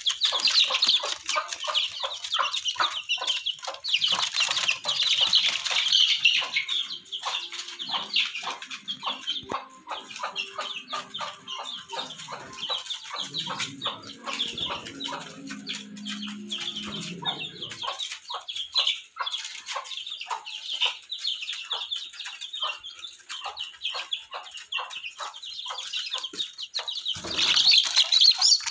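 Young chickens peeping rapidly and continuously, with scuffling and some wing flapping. A low hum sits under the peeps through the middle stretch, and there is a louder rustle near the end.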